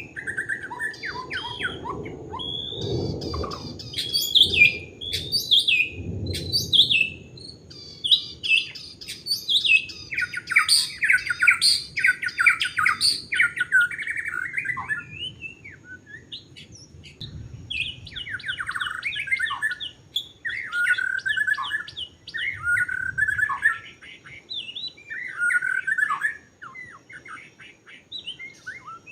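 White-rumped shama singing a long, varied song of rapid chirps, trills and sliding whistles, with barely a pause.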